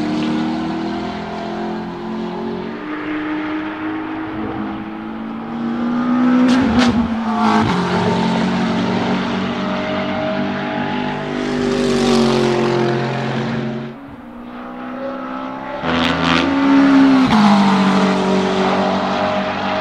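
McLaren 650S GT3 race car's 3.8-litre twin-turbo V8 running hard under acceleration. The engine note climbs and drops several times, grows loudest twice as the car comes close, and dips briefly about two-thirds of the way through.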